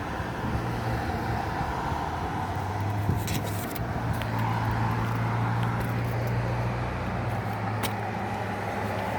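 A steady low mechanical hum with a few short clicks, about three seconds in and again near the end.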